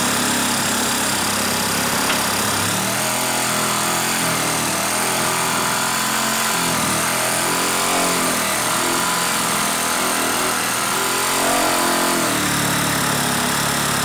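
DeWalt Atomic 20V compact brushless reciprocating saw (DCS369) running steadily as its blade cuts through a wooden board. The motor's note changes under load from about three seconds in and returns to its free-running sound near the end, as the cut finishes.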